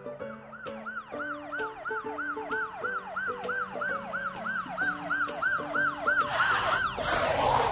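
Cartoon police siren sound effect in a fast rising-and-falling yelp, about three cycles a second, over a soft backing tune. A rushing noise swells near the end.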